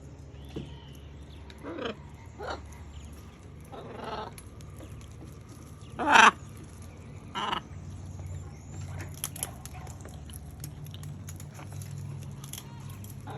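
Macaws giving short harsh squawks, about six separate calls with the loudest about six seconds in.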